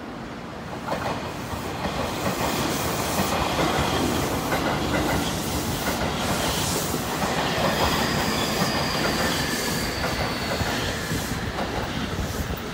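JR Kyushu 811 series electric multiple unit arriving and rolling past, growing louder about a second in, with its wheels clacking on the rails. A faint high wheel squeal comes through the middle of the pass.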